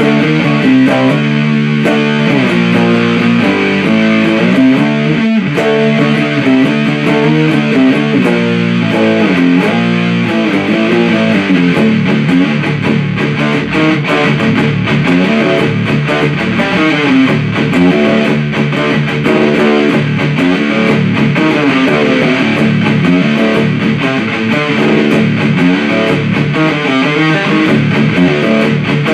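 Electric guitar played through a 77 Fuzz Blender, a Big Muff–style fuzz pedal, into an Orange Super Crush 100 amp: thick, distorted riffs of changing chords and notes, played continuously.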